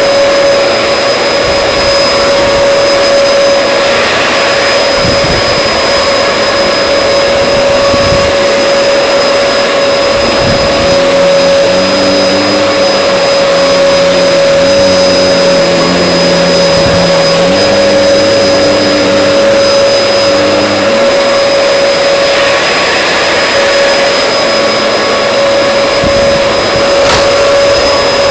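Vacuum cleaner running steadily, a loud motor rush with a constant high whine. From about eleven to twenty-one seconds in, a lower series of held notes steps up and down in pitch over it.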